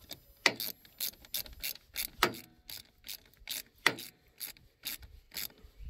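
Socket ratchet clicking in short strokes, about three clicks a second, as it tightens the nut on a car battery's negative terminal clamp.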